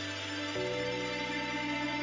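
Background music: sustained chords, shifting to a new chord about half a second in.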